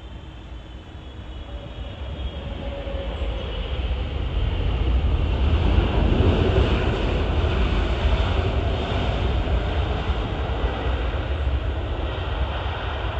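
Boeing 777 jet engines on a landing roll just after touchdown, a broad rumble that swells to its loudest about six seconds in as the airliner passes, then slowly eases off.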